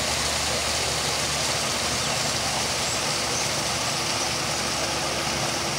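Small rock waterfall pouring into a garden koi pond: a steady rush of falling water, with a faint low hum underneath.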